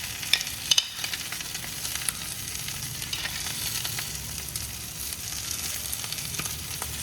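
Food sizzling on a hot sizzler plate: a steady frying hiss with a few sharp crackles.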